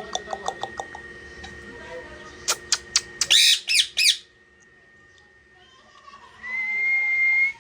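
Pet parrot calling: a run of quick sharp chirps, then a few loud harsh squawks about three seconds in, and near the end one steady held whistle lasting about a second.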